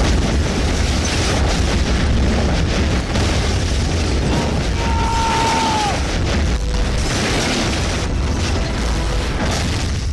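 A large explosion: a sudden loud blast at the start, then a long, deep, steady rumble of fire and debris.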